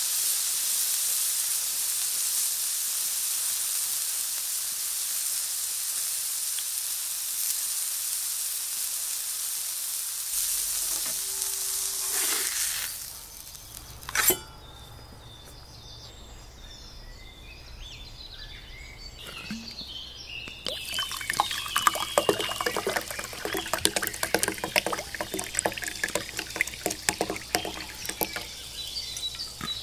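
Ribeye steak sizzling on a hot flat-top griddle, a steady hiss that stops about 13 seconds in, followed by one brief sharp knock and a quieter stretch. From about 21 seconds in, sparkling water is poured from a glass bottle into a tumbler, splashing and fizzing in a dense crackle.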